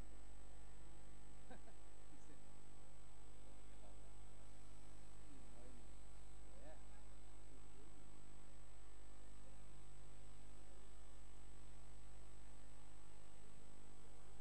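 Steady low electrical mains hum, with a thin, steady high-pitched whine above it.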